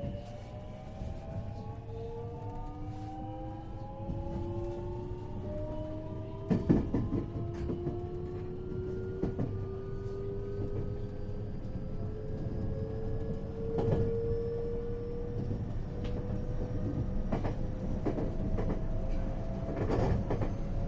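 Motor car of a 521-series electric multiple unit accelerating away from a station: its inverter whine, several tones together, rises slowly and steadily in pitch over the rumble of the running gear. A few sharp knocks of wheels over rail joints come through, the loudest about seven seconds in.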